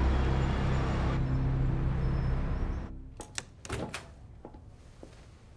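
Low, steady droning score under a scene change. It falls away about three seconds in, leaving a few sharp clicks and taps from small objects being handled.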